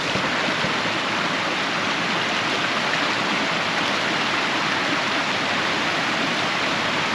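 A swollen upland river rushing over rocks, a steady, even rush of water.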